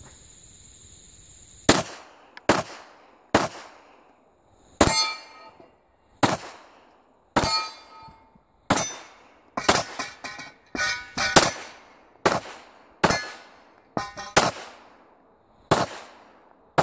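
A semi-automatic pistol firing about twenty shots in uneven strings, some in quick doubles and triples. Several hits are followed by a short metallic ring from steel plate targets.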